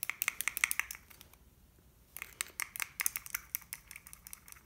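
Stirring stick scraping and clicking against the inside of a small mixing cup in quick strokes as white pigment and isopropanol are mixed. The stirring pauses for about a second partway through.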